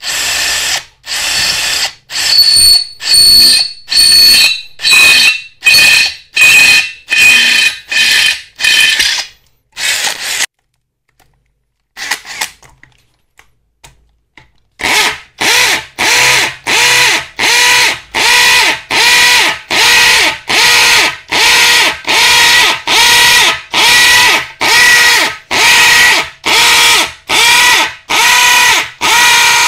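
Kyocera 18V cordless drill boring into steel with a twist bit in short bursts, about two a second, with a whining motor. About ten seconds in it stops, with only a few faint clicks, then about fifteen seconds in it starts drilling into a concrete block with a masonry bit, again in regular bursts about two a second.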